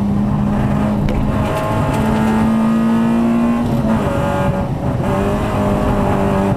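Peugeot 205 rally car's engine, heard from inside the cockpit, running hard under load along a gravel stage road. The engine note holds and creeps up in pitch, breaks about four seconds in, then carries on at a lower pitch.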